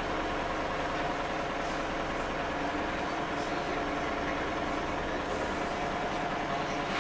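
Inside an Iveco Urbanway 12M city bus under way: its engine and drivetrain running steadily with road noise through the cabin. A faint high hiss comes in about five seconds in.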